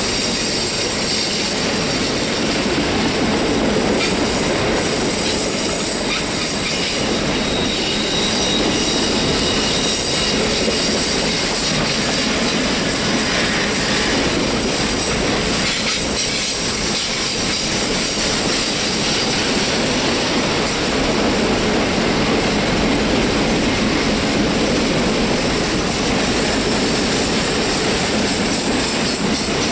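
Roadrailer trailers rolling steadily past on their rail bogies, the wheels squealing against the rails as they are forced around a sharp curve, over the rolling rumble of the train.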